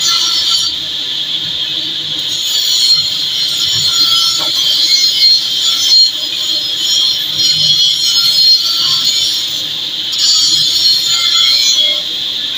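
Oxygen-and-gas cutting torch hissing steadily as it cuts through a steel pipe pile, a loud high hiss that eases slightly about a second in and again near ten seconds.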